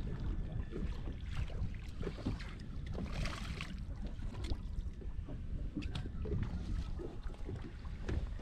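Wind buffeting the microphone and water against a boat's hull, a steady low rumble, with scattered light clicks and knocks from the fishing gear and a brief hiss about three seconds in.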